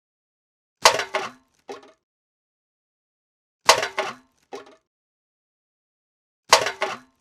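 A metal can being thrown away three times, about every three seconds. Each throw lands with a sharp metallic clatter, then rattles and bounces once or twice more before settling.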